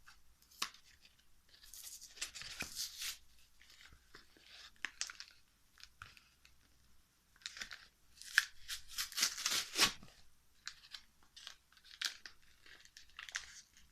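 Foil wrapper of a Pokémon booster pack being torn and crinkled in hand, in irregular rustling bursts, the longest tearing about eight to ten seconds in; the pack is hard to open.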